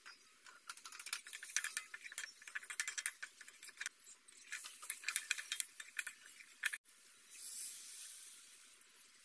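Dried anchovies frying in hot oil in a wok, a steady patter of small crackles and ticks. About seven seconds in, boiled mung beans poured in with their cooking liquid set off a louder hiss of steam that slowly fades.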